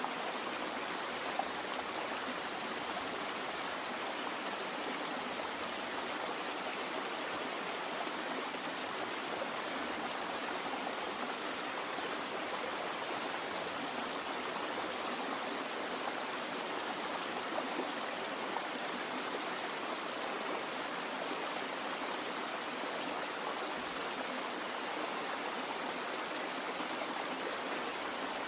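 Running water: a stream flowing, as an even, steady rushing with no change.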